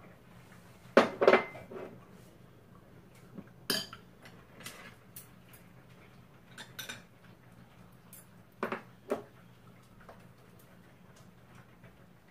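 Metal spoon and chopsticks clinking and scraping against bowls while eating: scattered separate clinks, the loudest two close together about a second in, and a few more through the middle.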